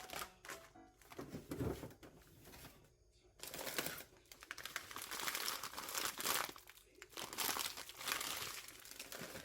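Crinkling and rustling in irregular bursts, with a short quiet gap about three seconds in.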